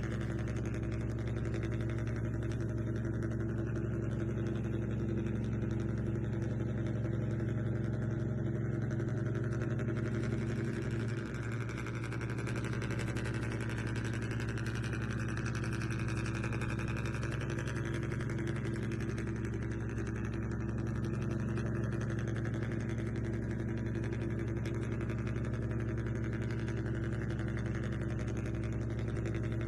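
Radio-controlled model vehicle running with a steady, low engine-like hum that dips briefly about a third of the way through.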